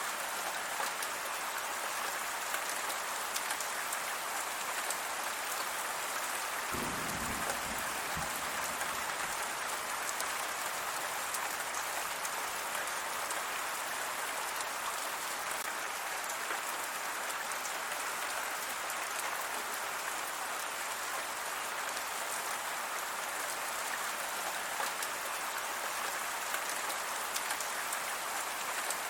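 Steady rain falling, an even hiss flecked with the ticks of drops, with a brief low rumble about seven seconds in.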